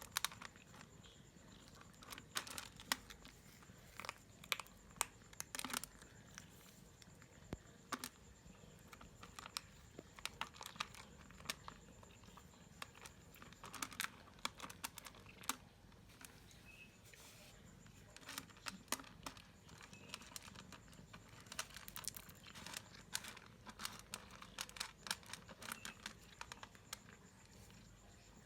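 A hungry stray cat with a broken jaw eating: a run of small, irregular clicks and crunches of chewing, several a second at times.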